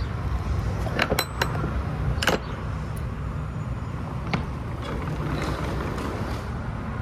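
Several sharp metal clanks as the latch of a box truck's roll-up rear cargo door is worked, the loudest about a second in, then the door sliding up. A steady low rumble of wind on the microphone runs underneath.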